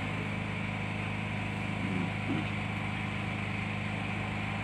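Steady low hum with a few even tones under a faint hiss, with a brief faint voice about two seconds in.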